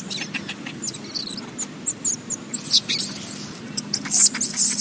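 Baby macaque crying in distress with rapid, shrill squeals while its mother holds it down; the squeals grow loudest near the end.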